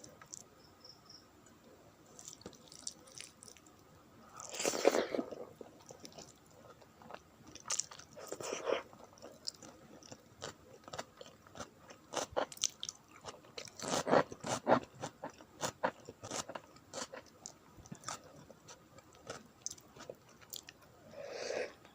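Close-miked eating of a meal of rice, dal and curries: chewing with scattered wet clicks and smacks of the mouth, and a few louder bursts of chewing spread through.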